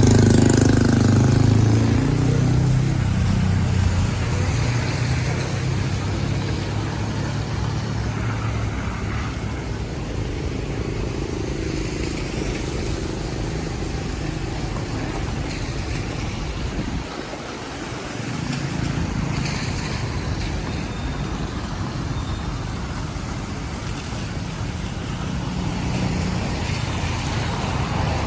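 Street traffic: vehicle engines passing against a steady wash of noise. The loudest vehicle comes by in the first few seconds, with a short lull a little past the middle.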